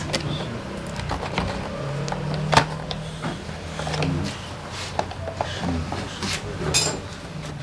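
Scattered clicks and knocks of hands and tools working on motorcycle parts, the sharpest about two and a half seconds in, over a low steady hum.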